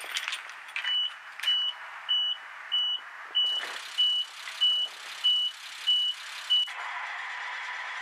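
Start-up beeper on a Bandit 1850 wood chipper sounding about ten short, even beeps, just under two a second, as the key is turned at its control panel. A steady hiss joins partway through, and after the beeping stops near the end the chipper's Caterpillar diesel engine runs with a steady hum.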